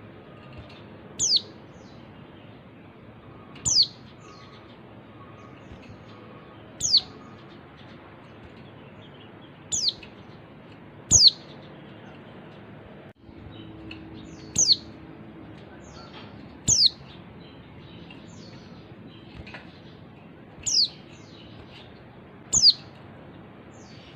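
Female white-eye (pleci) calling: about nine short, high, downward-slurred single notes, spaced two to four seconds apart, over a faint background hiss. This is the female's call that keepers play to set male white-eyes singing.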